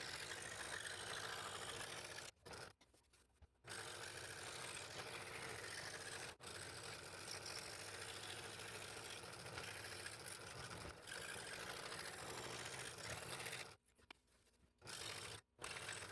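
Scroll saw running and cutting purpleheart fretwork, a steady machine noise that drops out twice for about a second.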